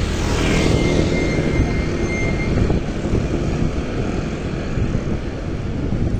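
Wind buffeting the microphone and road noise while riding a bicycle: a steady, rumbling rush, with a faint thin whistle about half a second in that lasts about two seconds.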